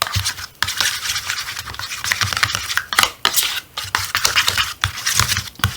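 Freshly made shampoo-and-salt slime being worked in a bowl: a dense run of irregular wet clicks and scraping.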